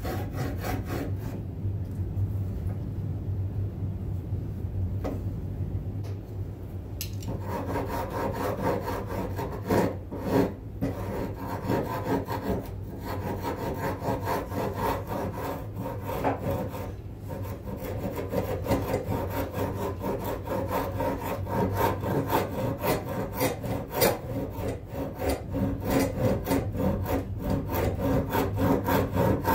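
Steel hand file rasping on a maple ukulele neck blank in quick, repeated strokes, hogging out the rough shape of the neck. The strokes grow louder and crisper about seven seconds in.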